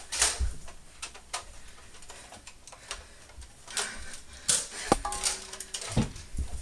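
Scattered sharp clicks and knocks at uneven intervals, with one sharper click about five seconds in that rings briefly.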